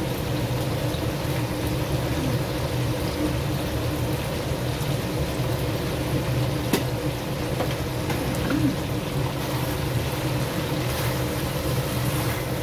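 Crabs and prawns simmering in sauce in a pan, with sauce spooned over them, over a steady hum. A single sharp clink about seven seconds in, as the spoon touches the pan.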